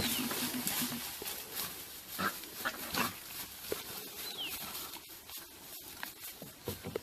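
An animal calling: a low, steady call for about the first second, then scattered clicks and rustling, with two short high whistles falling in pitch, one at the start and one about four seconds in.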